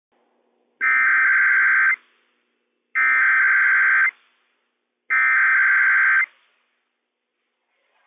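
Emergency Alert System SAME header on NOAA Weather Radio: three identical bursts of two-tone digital data tones, each a little over a second long and about a second apart. The bursts encode the alert code for a Required Weekly Test.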